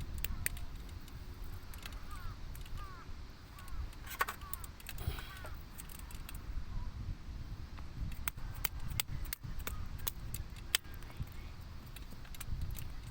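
Irregular sharp knocks of a kentanata being driven into firewood with a baton, a cluster of them in the second half. Birds chirp briefly near the start and again near the end.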